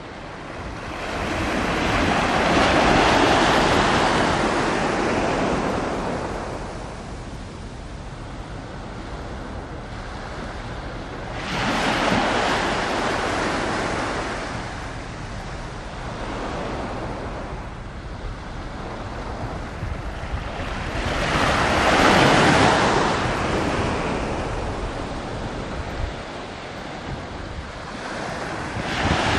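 Sea waves washing ashore in three slow surges about ten seconds apart, each swelling and fading over a few seconds, over a low rumble of wind on the microphone.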